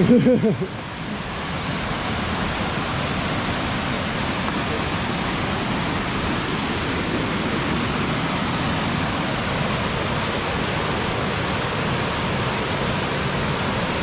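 Water rushing steadily down Kinlock Falls, a wide cascade running high and full of water.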